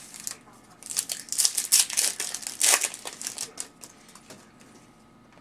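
Foil trading-card pack wrapper crinkling as it is handled and torn open. The rustle is densest about one to three seconds in, then dies down to a few small crackles.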